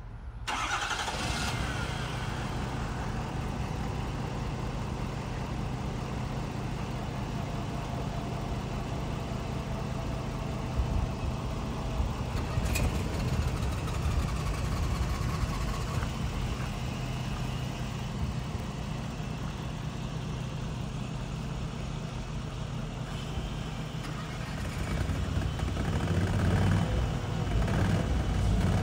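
Ford 6.7 L Power Stroke V8 turbo diesel starting, then idling steadily. It grows louder over the last few seconds.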